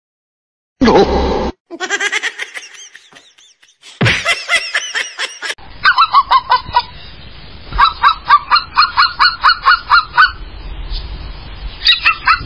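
A domestic fowl honking over and over, about three calls a second, in a long run from about six seconds in, breaking off and starting again near the end. Before that comes a sudden loud burst about a second in, followed by wavering animal cries.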